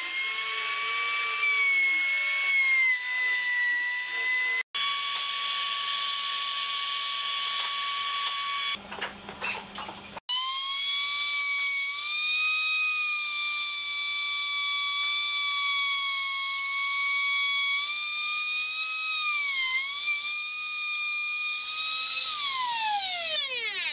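Router mounted under a router table running with a high-pitched whine, its pitch sagging a few times as the bit cuts a slot in the wood fed past it. Near the end the motor is switched off and winds down, the whine falling steeply away.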